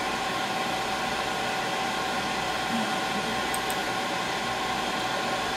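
Steady fan noise with a faint constant hum, unchanging throughout.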